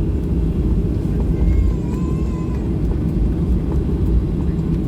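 Steady low rumble of a Boeing 737-800's CFM56 jet engines and airflow, heard from inside the passenger cabin. A faint wavering tone comes in briefly about two seconds in.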